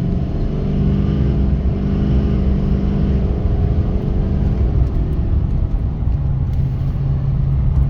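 6.6 L Duramax L5P diesel V8 pulling under hard acceleration with its stock air intake, a low rumble whose pitch climbs over the first few seconds and then drops to a lower note about halfway through.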